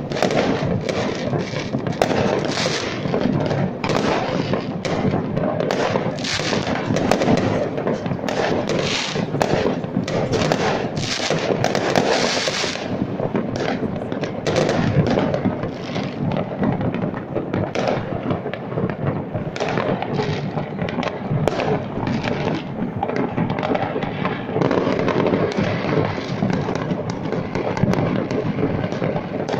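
Fireworks going off without a break: many bangs and crackling pops overlapping.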